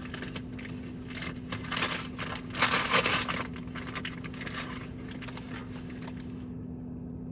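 Brown paper packaging crinkling and tearing as a mailer is opened by hand, in a run of rustles loudest about three seconds in, then dying down. A steady low hum runs underneath.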